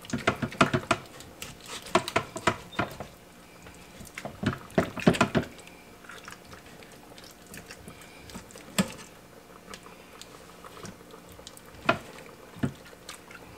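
Tongs clacking and knocking against the stainless inner pot of an electric pressure cooker as beef short ribs are turned in a wine, broth and tomato sauce, with wet squelches of the meat. A quick run of clicks in the first few seconds, another about five seconds in, then only a few single taps.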